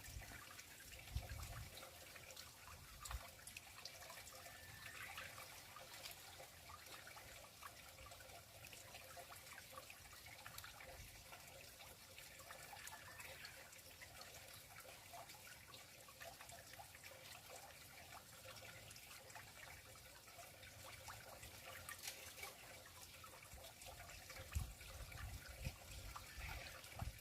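Faint, steady trickle of water flowing into a small pond, with a few low bumps near the start and near the end.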